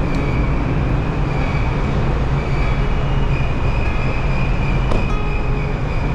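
Steady, loud low rumble of a car ferry's enclosed vehicle deck, from the ship's engines and ventilation machinery, with a thin high whine above it. A single sharp click comes about five seconds in.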